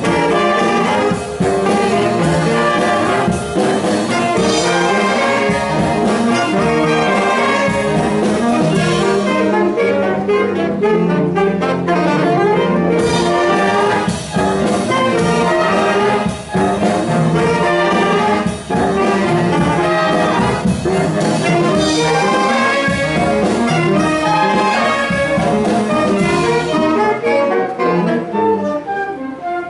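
Wind band playing live, with trombones and other brass to the fore over clarinets, flutes and saxophones. The music goes on without a break and drops away in the last moments.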